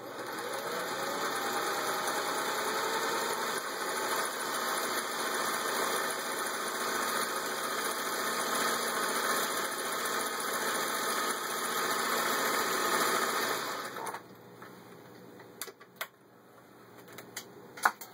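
Vintage Singer 500A 'Rocketeer' sewing machine running steadily, stitching, for about fourteen seconds before stopping, followed by a few light clicks.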